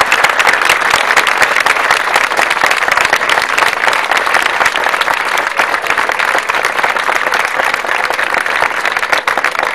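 Crowd applauding: dense, steady clapping from many hands, easing off a little toward the end.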